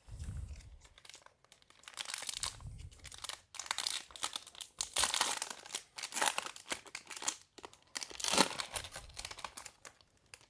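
Crinkling and tearing of a trading-card pack's foil-plastic wrapper being handled and opened, a run of crackles with louder tears near the middle and about 8 seconds in.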